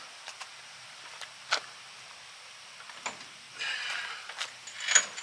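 A few scattered clicks and knocks with a short scraping rustle, the sound of metal parts being handled while a shock absorber is fitted; the sharpest click comes near the end.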